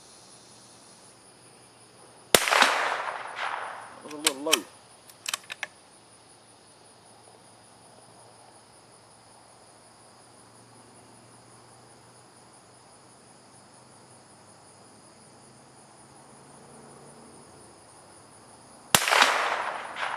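Two single shots from a bolt-action CZ 452 .22 LR rifle firing high-velocity hollow points, one about two seconds in and the other near the end, each a sharp crack that dies away quickly. A few light metallic clicks a couple of seconds after the first shot, the bolt being worked to chamber the next round.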